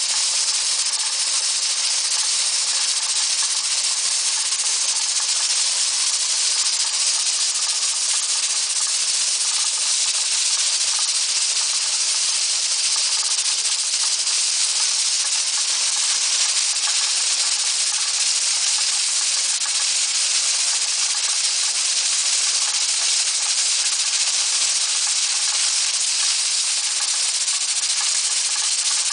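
Pressure canner's weighted regulator rocking steadily on the vent pipe, letting out a continuous hiss of steam: the sign that the canner has come up to pressure.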